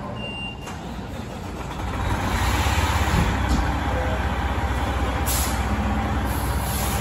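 Fire engine's diesel engine running, getting louder about two seconds in, with a short air-brake hiss about five seconds in.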